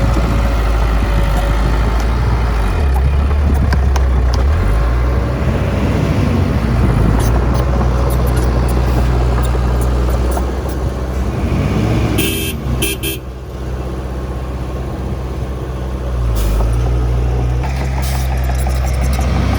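Heavy diesel engines of a dump truck and bulldozer running, the engine note shifting up and down as they work. A brief burst of high, hissing noise comes about twelve seconds in.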